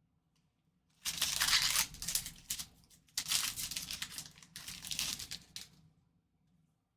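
Trading card pack wrapper being torn open and crinkled by hand, in a few crackling bursts that start about a second in and stop about a second before the end.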